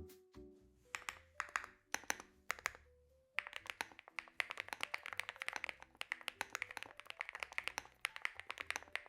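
Typing on a mechanical keyboard: a few separate key clicks, then fast, steady typing from about three seconds in.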